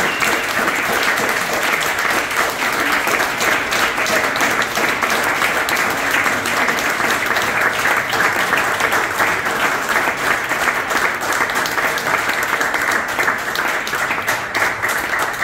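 A small audience applauding steadily, with many individual hand claps standing out.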